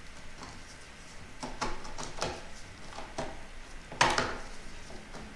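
Hand-held can opener being worked around the rim of a food tin: a run of irregular clicks and crunches as the blade cuts the lid, with one louder crunch about four seconds in.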